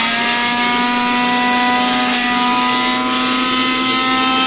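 Electric mixer grinder running at steady speed, an even motor whine, grinding pieces of brown bread into coarse crumbs in its steel jar.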